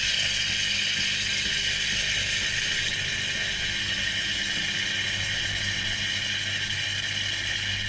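Cookworks espresso machine's pump buzzing steadily as it pushes descaling solution through the machine, with a continuous hiss of liquid and steam.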